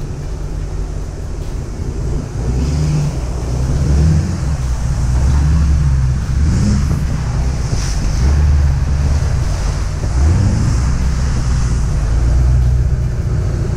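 Pickup truck engine running while driving along a muddy track, with heavy wind noise on the microphone and tyres splashing through puddles. The engine note rises briefly about ten seconds in.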